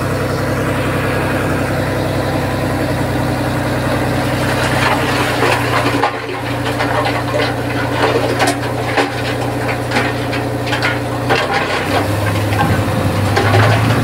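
Komatsu D20P crawler bulldozer's diesel engine running steadily while it pushes stone. From about five seconds in, rock crunches and clatters in irregular knocks over the engine.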